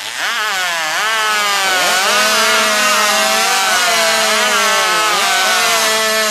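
Two-stroke chainsaw in the 0–140 cc class revving up and cutting through a log at full throttle. Its engine pitch sags under load a few times and then picks up again.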